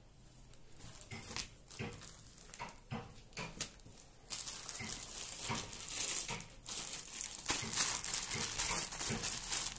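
Hands handling T-shirts: soft cloth rustles for the first few seconds, then from about four seconds in continuous, louder crinkling of the clear plastic poly bag around a packaged T-shirt as it is turned over.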